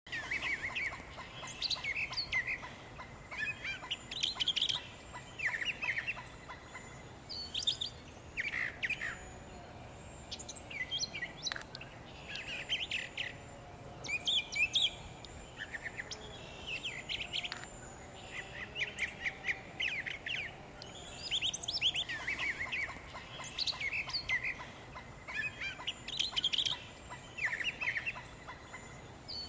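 Birds chirping: clusters of quick, high chips that come again every second or two.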